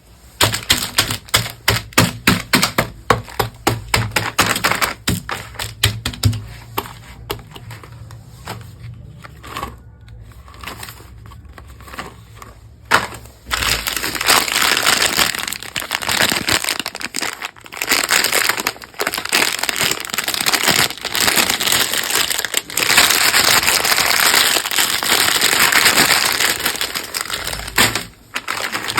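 Cadbury Dairy Milk Shots packaging being handled and opened, wrapper crackling and crinkling. A rapid run of sharp crackles comes first, then a quieter, sparser spell, and from about halfway on a dense, continuous crinkling.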